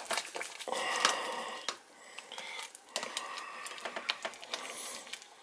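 A spoon stirring thick split pea and ham soup in a slow cooker's crock, with irregular clicks and knocks of the spoon against the pot and stretches of wet scraping.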